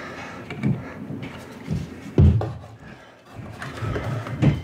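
Four dull knocks and handling bumps, the loudest a bit past two seconds in, as hands work the carburetor throttle arm on a Super Tigre 45 model airplane engine.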